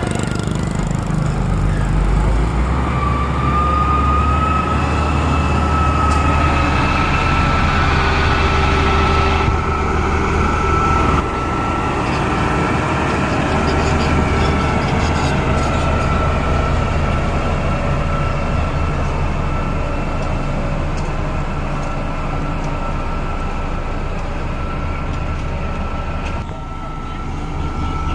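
Bulldozer's diesel engine running steadily while working, with a steady high-pitched whine over the low engine sound.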